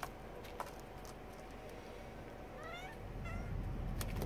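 Domestic cat giving two short rising chirp-like meows while hunting a grasshopper, with a few sharp taps of paws on cardboard. A low rumble builds in the last second.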